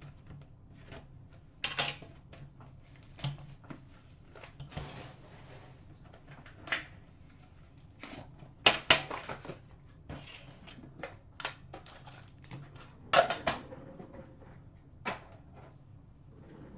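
Hands opening a sealed hockey-card box: scattered clicks, taps and rustles of cardboard and plastic wrapping, with a few sharper knocks about nine and thirteen seconds in.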